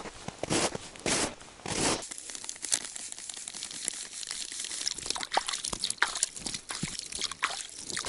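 Footsteps crunching in snow, about three steps in the first two seconds. Then a plastic bag of dry groundbait crinkling and rustling as the bait is poured into a bucket, with many small crackles.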